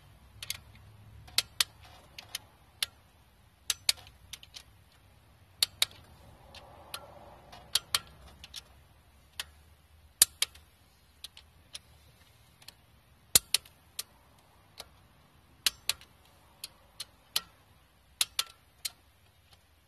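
Click-type torque wrench rechecking the rocker shaft bolts: sharp clicks every second or two, often in close pairs, as the wrench reaches its 20 ft-lb setting on each bolt.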